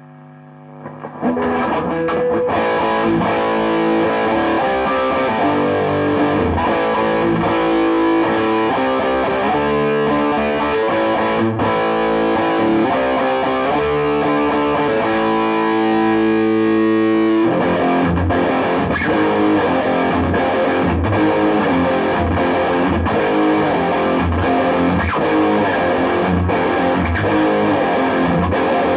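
Electric guitar played through a Peavey Bandit 112 combo's lead channel in high-gain mode, heavily distorted. After a quiet fading note, loud chords start about a second in and are held, changing every couple of seconds. About two-thirds of the way through they give way to fast, rhythmic chugging riffs.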